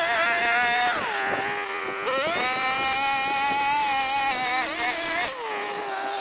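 Riwall RPB 517 brushcutter's two-stroke petrol engine running at high revs while cutting. The throttle is eased off twice, about a second in and again near the end, each time the pitch dropping to a lower steady note, then revving back up.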